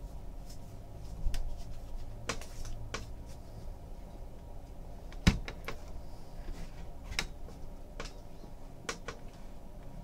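Baseball trading cards being handled and flipped through one by one, making light clicks and slides of card against card, with one sharper knock about five seconds in, over a low steady hum.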